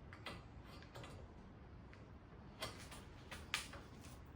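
Faint, irregular metallic clicks and ticks, about half a dozen, as a bicycle rear derailleur is handled and screwed onto its hanger extender; the sharpest click comes late.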